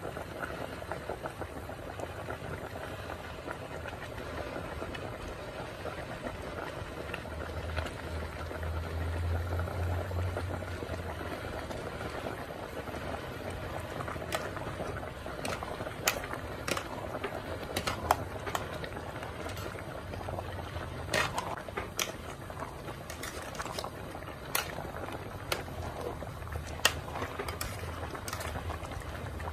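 A pot of sour curry bubbling at a rolling boil. From about halfway through, a metal ladle stirring it clinks sharply against the aluminium pot again and again.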